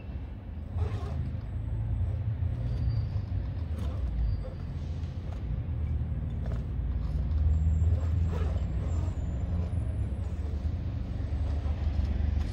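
Axial SCX10 II 1/10-scale RC crawler driven over rocky ground: a few faint knocks over a low, wavering rumble.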